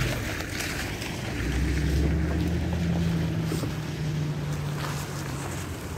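Low engine hum of a passing motor vehicle, swelling about a second and a half in and easing off near the end, with wind noise on the phone's microphone.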